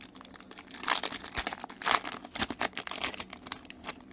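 Foil Pokémon booster-pack wrapper crinkling and rustling in the hands in a run of irregular crackles, with a couple of louder crinkles about one and two seconds in.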